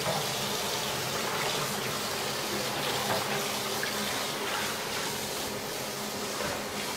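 Kitchen tap running into a dark pan in a stainless steel sink as the pan is rinsed by hand, a steady rush of water.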